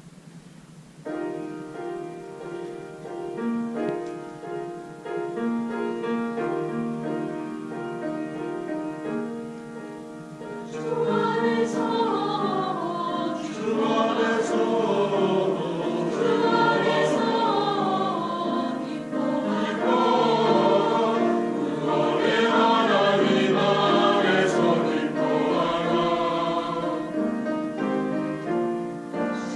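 Church choir singing a sacred anthem. It comes in softly with held, stepping notes about a second in, then grows fuller and louder about eleven seconds in.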